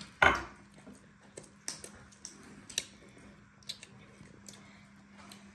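Small clicks and taps of dishes and a mug at a meal table, after one short loud knock about a quarter of a second in, over a faint steady hum.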